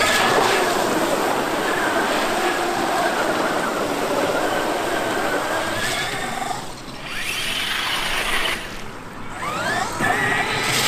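Traxxas X-Maxx RC monster truck's VXL-8s brushless electric motor and drivetrain whining under throttle over a steady hiss. The whine eases off twice, near the middle and again about two-thirds in, then climbs in pitch as the throttle comes back on.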